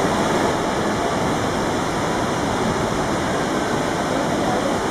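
Iguazú Falls at the Devil's Throat: a steady, even rush of falling water and churning whitewater.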